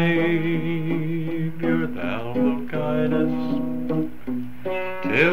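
A man singing with his own acoustic guitar on a muffled 1959 home tape recording, the held notes wavering and sliding.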